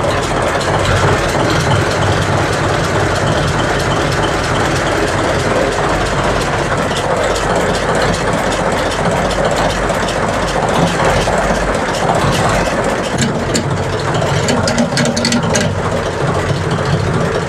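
Six-cylinder Baudouin slow-running marine diesel engine running steadily up close, while it charges its starting-air tank for the next start. Some sharp clicks come in over the last few seconds.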